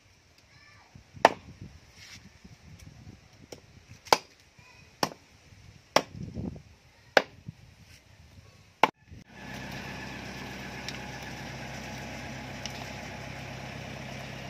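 Blade chopping raw meat on a cutting board on the ground: six sharp chops, unevenly spaced, over the first nine seconds. About two-thirds of the way in, a steady motor-like hum with hiss starts and continues.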